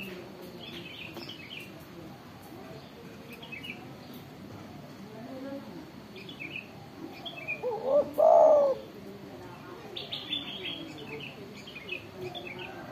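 Spotted dove cooing once, about eight seconds in: a short run of notes leading into a longer, louder call. High bird chirps come and go in the background.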